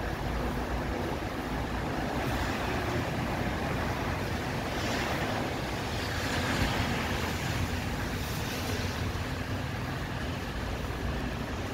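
Street traffic noise: tyres hissing on a wet, slushy road, swelling twice in the middle as vehicles pass.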